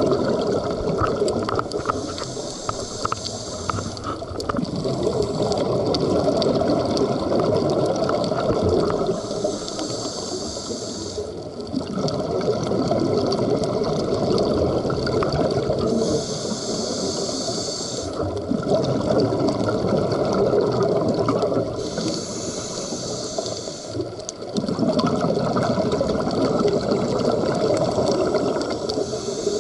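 Scuba diver breathing underwater through a demand regulator: a hiss on each inhalation, then a long rush of exhaled bubbles, repeating about every six to seven seconds.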